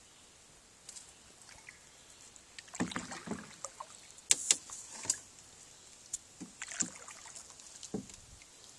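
Canoe hull and gear knocking and clicking as people shift and handle things in the boat: scattered light knocks and sharp clicks, the sharpest two close together about halfway through.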